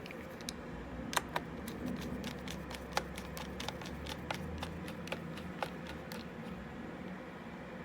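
Light, irregular clicks and taps on a laptop's plastic and metal parts during hard drive replacement, over a low steady hum.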